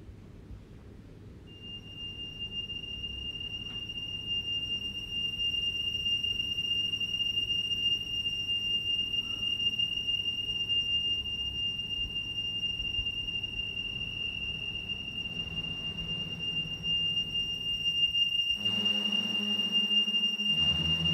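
Electronic sound-design score. A steady high whistling tone comes in about a second and a half in and holds over a low rumbling drone, growing louder. Near the end a low pulsing tone joins in.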